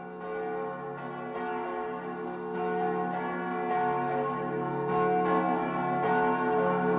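Bell-like chimes ringing in sustained tones, with a new strike about every second and a quarter, swelling steadily louder as the intro of a heavy metal song.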